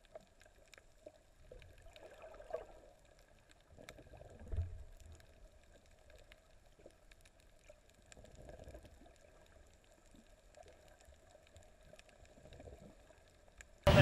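Faint, muffled underwater sound picked up by a camera held below the surface, with a few soft low gurgles. The loudest gurgle comes about four and a half seconds in.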